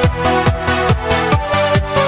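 Electronic dance music with a steady kick drum, about four beats a second, under held synth notes.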